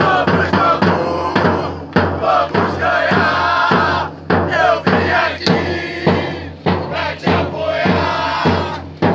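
Football supporters' group chanting together, with drums beating along.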